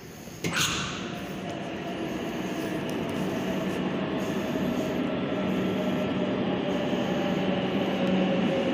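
Madrid Metro train running in the station below, a steady rumble with a slowly falling whine that grows louder. A sudden sharp noise comes about half a second in.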